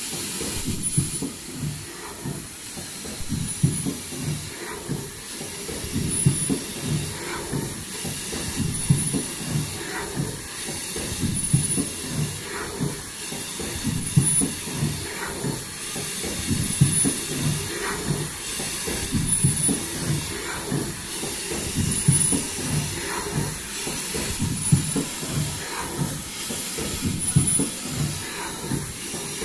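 Automatic folding-mask production machine with exhalation-valve welding running continuously. It gives a dense, rapid mechanical clatter with air hiss, a click that recurs about every two seconds as it cycles, and brief very high-pitched tones repeating every second or two.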